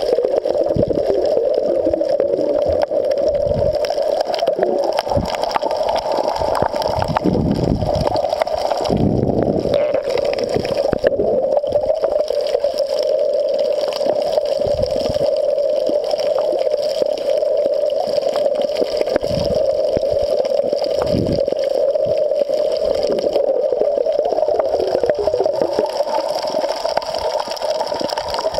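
Muffled underwater water noise picked up by a submerged camera: a steady rushing, with occasional low thumps.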